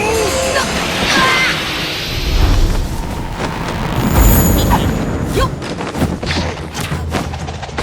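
Layered cinematic fight sound effects: a dense run of heavy booms, crashes and impacts over a continuous low rumble.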